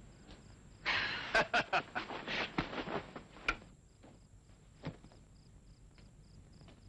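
A burst of rustling with several sharp knocks, starting about a second in and dying away by about three and a half seconds, then one more faint knock.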